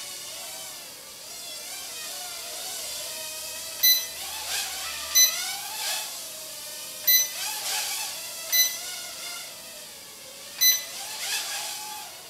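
Bayangtoys X9 micro quadcopter flying, its small motors whining with a pitch that rises and falls as the throttle changes. Five short, sharp electronic beeps, the loudest sounds, come at uneven intervals from about four seconds in.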